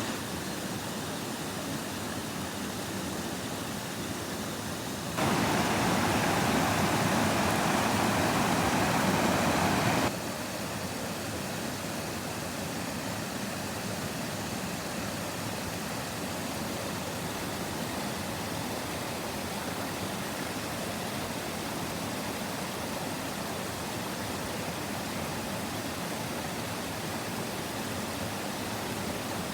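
Steady rushing roar of Niagara Falls' cascading water. About five seconds in it becomes markedly louder and fuller for roughly five seconds, then drops back abruptly.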